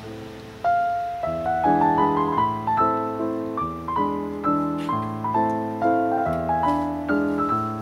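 Calm background piano music: single notes and chords struck one after another, each left to ring and fade.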